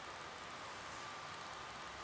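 Faint steady hiss of workshop room tone with a thin, steady high-pitched hum, and no distinct events.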